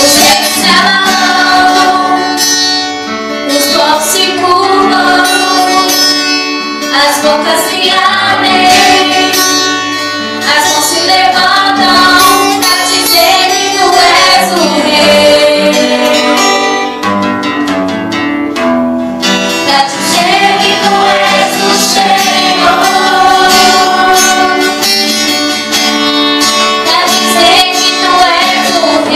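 A woman singing a gospel worship song into a microphone, with acoustic guitar accompaniment.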